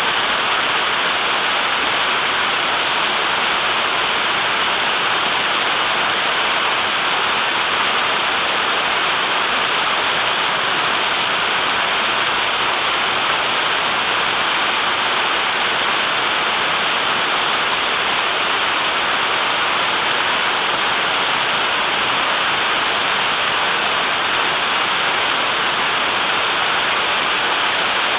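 Small waterfall rushing steadily: a dense, unbroken hiss of falling water, strongest in the upper mid-range.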